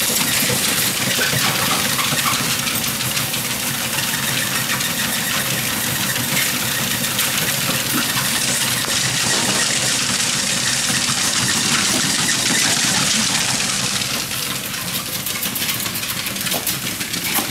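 ProForm treadmill running steadily with its motor and belt going, with the patter of several small dogs' paws on the moving belt. It gets a little quieter about fourteen seconds in.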